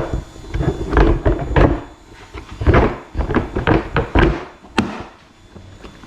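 A run of loud thunks and knocks, hard parts being handled and set down, with a single sharp click about five seconds in.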